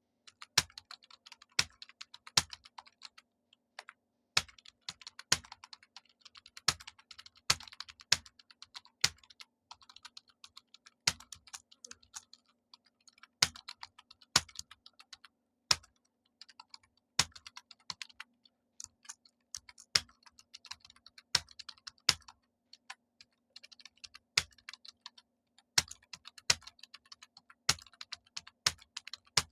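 Computer keyboard typing at a steady test pace: rapid runs of key clicks, with a louder single keystroke standing out roughly once a second.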